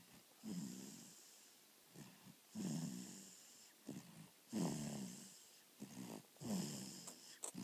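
Snoring: four snores about two seconds apart, with short quieter sounds between them.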